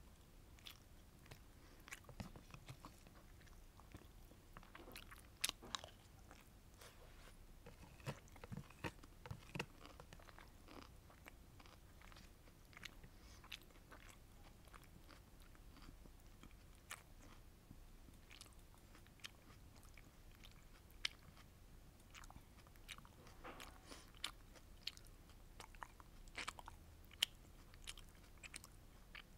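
Quiet, close-miked chewing and biting of sweet and sour fish with rice, with scattered sharp wet mouth clicks at irregular moments.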